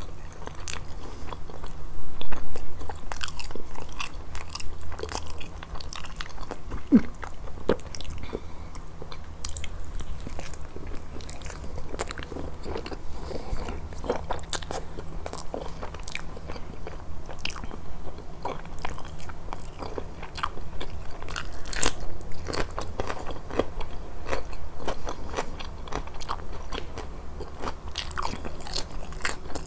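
Close-miked eating of grilled fish: continual biting and chewing with frequent crisp crunches and wet mouth clicks.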